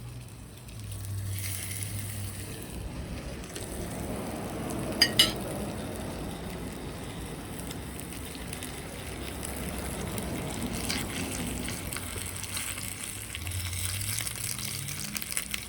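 Steak sizzling as it fries in a hot pan, the sizzle setting in about a second in and running steadily. Two sharp clicks sound about five seconds in.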